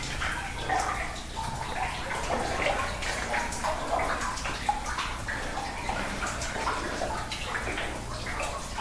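Water splashing and sloshing around the legs of someone wading through knee-deep water in a flooded mine adit, in an uneven, continuous run of splashes.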